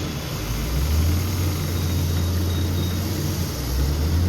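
Diesel engine of a JCB backhoe loader running steadily, its speed dropping a little about a second in and picking up again near the end.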